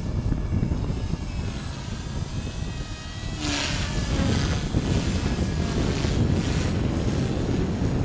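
Align T-Rex 250 electric RC helicopter flying overhead, its motor and rotor whine wavering and swelling about halfway through, under heavy wind buffeting the microphone.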